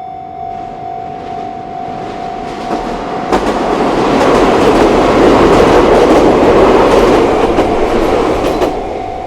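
A Chichibu Railway electric train passing over the level crossing, its wheels clattering over the rail joints, building to loudest in the middle and fading near the end. The crossing's warning bell is ringing at the start, is drowned out by the train from about three seconds in, and is heard again as the train goes.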